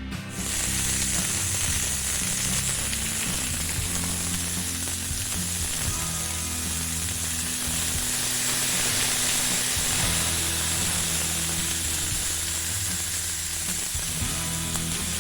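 Steaks sizzling in butter in a cast iron pan, a steady hiss, with background music underneath.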